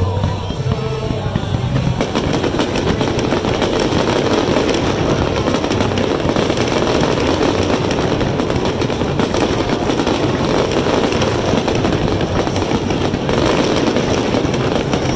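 A fireworks finale barrage: many aerial shells bursting in quick succession, a dense, continuous run of bangs and crackling with a low rumble under it, thickening about two seconds in.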